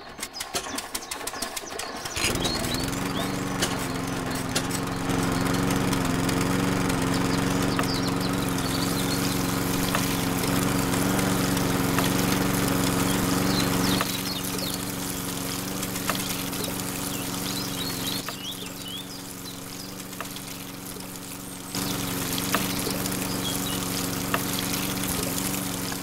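Small motor of a toy model engine starting up about two seconds in and then running steadily, driving a toy water pump by a belt, with water pouring and splashing.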